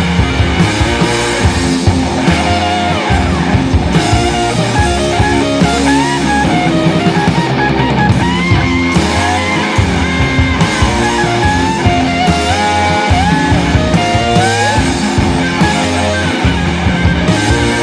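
Rock music with electric guitar: a lead guitar line with sliding notes over a steady beat and bass.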